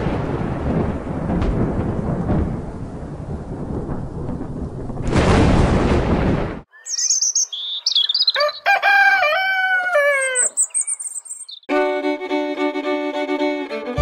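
Heavy rain with rumbles of thunder, cutting off abruptly about six and a half seconds in. Birds then chirp and a rooster crows, and near the end music with held chords begins.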